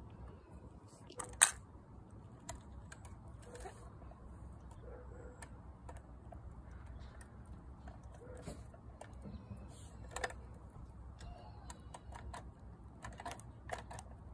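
Hands handling a First Gear model garbage truck and a small plastic toy cart: scattered light clicks and taps, with a sharp click about a second and a half in and another about ten seconds in.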